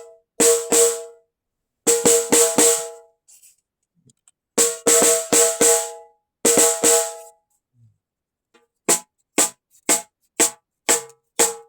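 A 10-inch snare drum played with a stick in short groups of three or four strokes, each ringing with a pitched overtone. From about three-quarters of the way in come about seven sharp, dry side-stick (cross-stick) clicks with no ring.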